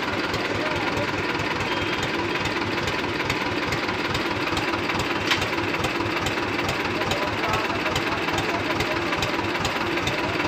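Diesel tractor engine idling close by with a steady knocking beat.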